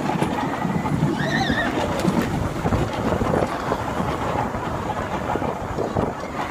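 Roller coaster train rattling and rumbling along its track, with wind buffeting the microphone. About a second in, a rider lets out a brief high-pitched scream.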